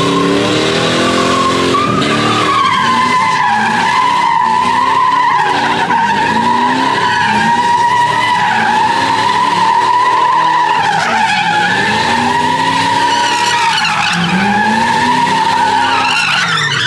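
Tyres squealing in one long, wavering screech while the engine revs rise and fall again and again: a vehicle sliding in continuous donuts at a sideshow. The squeal breaks up near the end.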